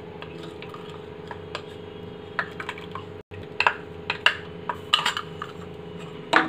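Custard mixed in cold milk is poured from a plastic cup into hot milk in a steel pot. In the second half a spoon clicks and taps against the metal pot. A steady low hum runs underneath.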